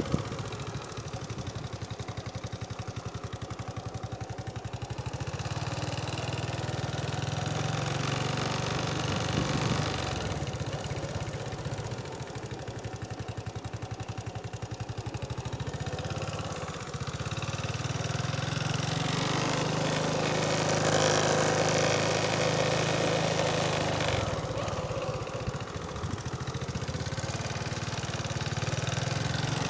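Small vehicle engine running steadily at low speed, with a fine even pulse and some road noise; it grows a little louder past the middle.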